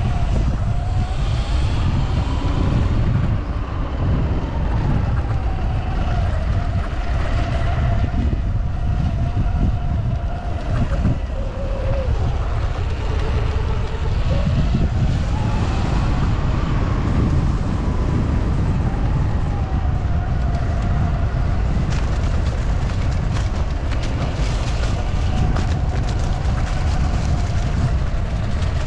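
Sur-Ron electric dirt bike's motor whining, its pitch rising and falling as the bike speeds up and slows on the track, under heavy wind rumble on the microphone.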